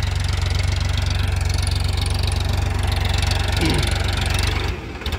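Farmtrac 45 tractor's three-cylinder diesel engine running steadily under load as it tills between rows of sugarcane. The sound dips briefly near the end.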